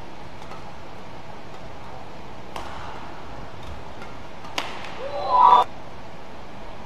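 Badminton rally: sharp racket hits on the shuttlecock, the hardest about four and a half seconds in, then a player's short loud shout as the point is won. Steady arena hall noise runs underneath.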